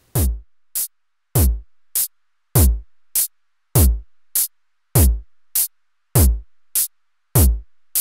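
Electronic drum pattern from a Eurorack modular synthesizer. A deep kick with a quickly falling pitch sounds about every 1.2 seconds, with shorter, lighter hits in between.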